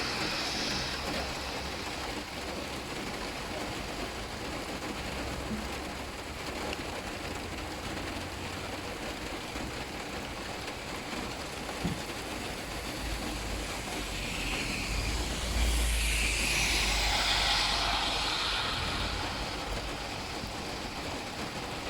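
Steady hiss of falling rain, with a single short knock near the middle. A low rumble swells and fades about two-thirds of the way through.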